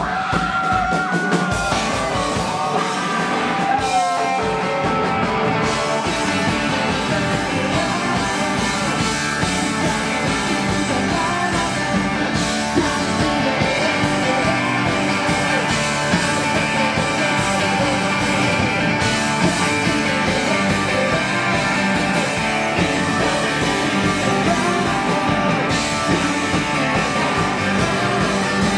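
Live rock band playing loud and without a break: electric guitar, bass guitar and drums.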